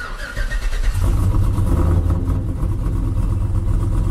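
AWD GMC's engine and exhaust under hard acceleration, a loud steady drone with a deep rumble that comes in about a second in.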